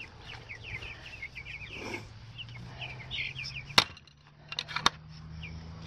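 Young meat chicks peeping, many short high cheeps. A little under four seconds in, a sharp metallic click, then a few more clicks a second later, from the metal latch on the chicken tractor's wooden door.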